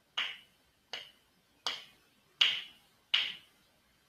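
Finger snaps at a steady pace, five in a row about three-quarters of a second apart, each a sharp crack that dies away quickly: the teacher's cue for each letter as the class spells a word aloud.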